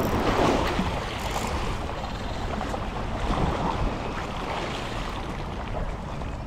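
Wind buffeting the microphone over sea water washing against a boat, a steady rushing noise.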